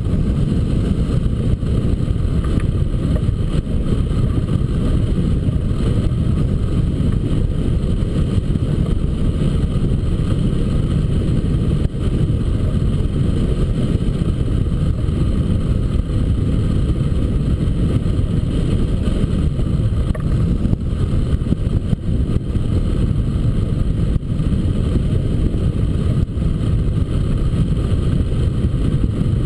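Steady rushing wind noise from the airflow of a hang glider in flight buffeting the camera's microphone, deep and constant.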